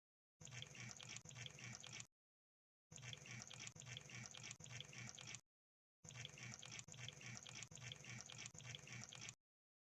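Crab sound effect: a faint, rapid crackle of tiny clicks, played in three stretches of about two to three and a half seconds with dead silence between them.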